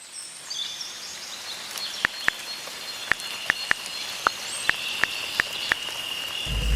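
Outdoor nature ambience: about a dozen short, sharp chirps at uneven intervals, with a steady high-pitched insect drone from about halfway through, over a soft hiss.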